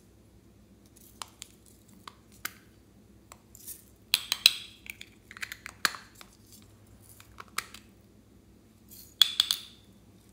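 Hard plastic bear-shaped cases being handled and opened over a glass dish: scattered sharp clicks and taps, with busy clusters of clatter about four seconds in and again near the end.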